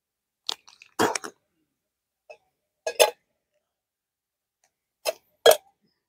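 Clicks and light clinks from a portable camping cook set, its kettle and pot pieces being handled, in three short clusters a couple of seconds apart.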